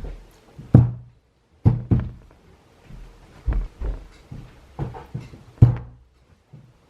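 Metal turbo parts (turbocharger, exhaust manifold, downpipe) being set down on a table one after another: a series of short thunks and knocks.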